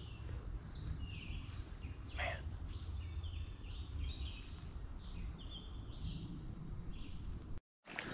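Woodland birds singing: a string of short chirps and whistled notes over a low background rumble.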